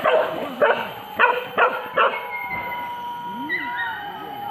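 Leashed boar-hunting tracking dogs barking in a quick run of about five yaps over the first two seconds, then whining with rising and falling pitch.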